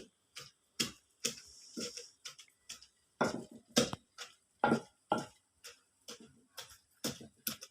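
Pestle pounding fresh bangun-bangun (Indian borage) leaves and stems in a mortar: a string of sharp, uneven knocks, about two to three a second, some strokes louder than others.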